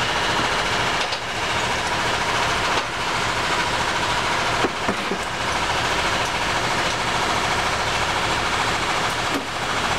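A machine running steadily, an even mechanical whir with a few brief dips.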